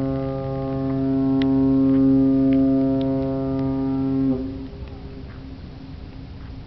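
Ship's horn sounding one long, steady blast of about four and a half seconds on a single low note, then cutting off sharply. It is a fog signal from a vessel in thick fog.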